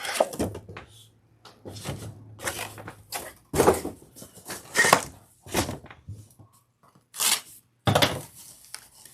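A cardboard shipping box of vinyl records being opened and handled: irregular rustling, scraping and thunks of cardboard, packing and shrink-wrapped LP sleeves.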